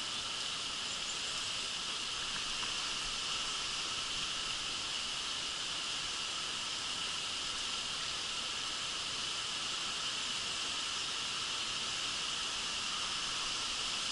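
A steady insect chorus, a constant high-pitched buzzing, over the even hiss of a shallow stream.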